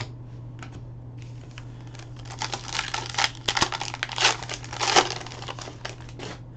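Foil trading-card pack wrapper crinkling and tearing as it is opened by hand: a run of crackly rustles starting about two seconds in and lasting about four seconds, loudest near the end.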